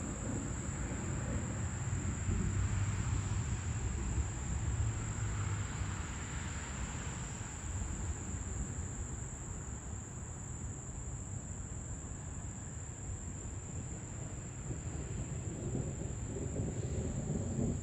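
Distant thunder rumbling low and long, loudest in the first several seconds and swelling again near the end, over a steady high-pitched trill of insects.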